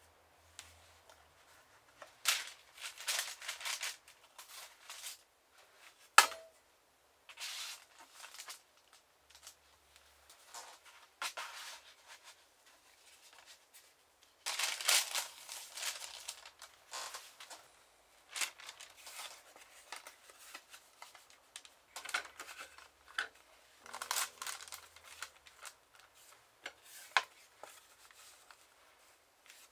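Hand-work with paper and boards at a workbench: irregular rustling and sliding of paper sheets with scattered light taps, and one sharp click about six seconds in.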